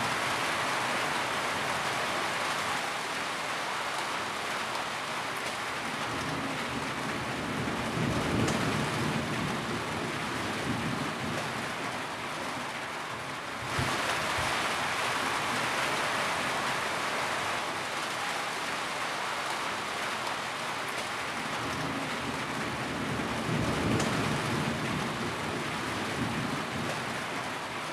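Steady rainfall, a dense even hiss, with a low rumble swelling up twice, about eight and twenty-two seconds in. The sound breaks off abruptly and resumes about fourteen seconds in.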